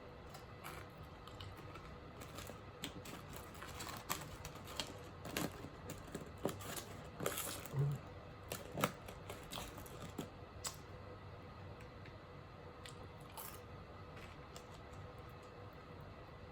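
Close-up eating sounds: chewing french fries, with scattered mouth clicks and small crackles that are thickest in the middle and die away over the last five seconds or so.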